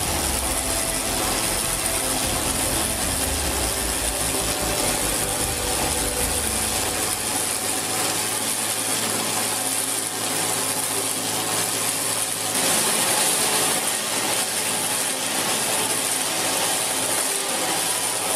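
Industrial log lathe turning a log round: a steady mechanical rattle with a high hiss of the cutter shaving wood. A low rumble drops away about seven seconds in.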